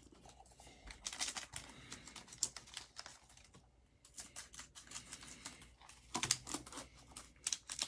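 Trading card pack's wrapper crinkling as it is picked up and cut open with scissors: a run of irregular sharp crackles and clicks.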